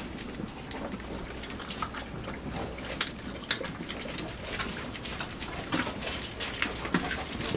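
Five-week-old chocolate Labrador puppies scuffling about in their pen: scattered scratches and clicks, the sharpest about three seconds in.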